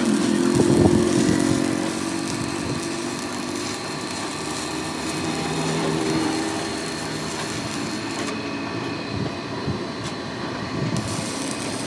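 A power tool or motor-driven workshop machine running steadily, with a constant mechanical drone and hiss.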